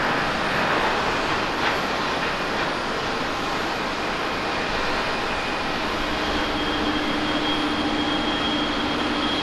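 Jet engines of a landed Boeing 777-200 airliner running as it rolls out and slows on the runway: a steady rushing noise. A steady high whine with a lower hum comes in about six seconds in as it slows to taxi.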